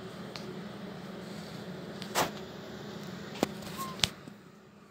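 Wood stove burning in a secondary wood-gas burn: a steady rushing noise with three sharp cracks, about two, three and a half and four seconds in, the first the loudest; the steady noise falls away near the end.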